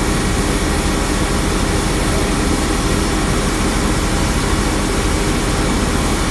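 Johnston street sweeper running at working speed, heard from the cab: a loud, steady drone of the engine and its suction fan.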